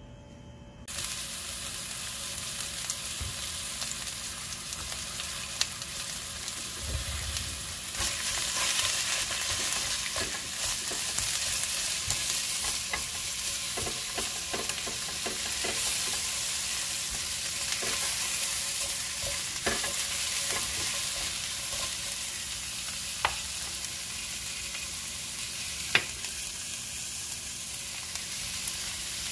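Julienned carrots and sliced onions sizzling as they stir-fry in a stainless steel pan, starting about a second in and growing louder from about eight seconds. A silicone spatula stirs them, with a sharp click against the pan now and then.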